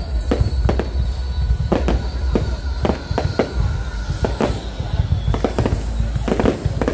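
Aerial fireworks bursting: an irregular run of sharp bangs, several a second at times, over a continuous low rumble of the display.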